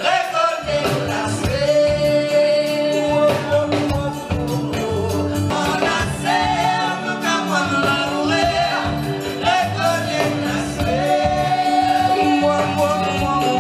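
Live sega music: a singer holding long notes into a microphone over a band with a steady percussion beat.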